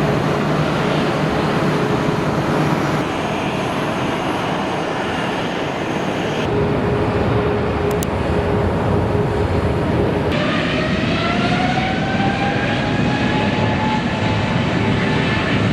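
Jet airliner engines running loud and steady in short clips that change abruptly three times. In the last clip, from about ten seconds in, an engine whine rises in pitch.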